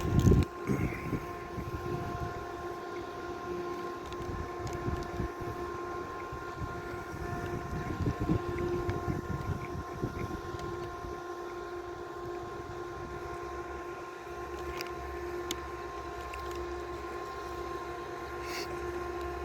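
A steady mechanical hum holds one constant pitch throughout. Irregular close-up crunching and handling noises come through it during the first half, and a deeper low rumble joins after about twelve seconds.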